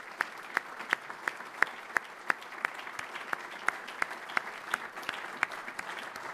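Audience applauding, with one person's claps close to the microphone standing out sharply and evenly at about three a second.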